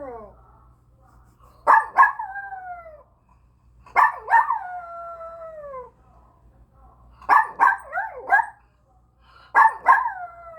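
Pet dog howling in four bouts a couple of seconds apart. Each bout opens with two or three sharp yelping onsets and slides down into a long falling howl; the third is a quick string of short yips instead.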